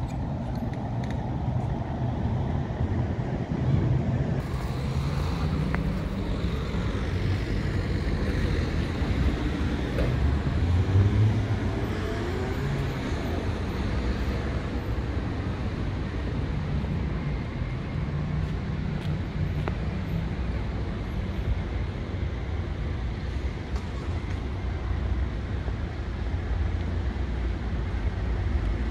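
Road traffic on a city street: cars running past with engine and tyre noise, a steady rumble that swells as a vehicle passes about ten seconds in.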